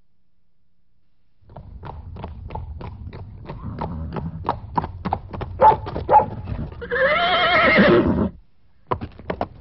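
Horse hooves clip-clopping at about four beats a second on a hard surface, starting about a second and a half in. Near the end a horse whinnies loudly, its wavering pitch rising and then falling, and the hoofbeats resume shortly after.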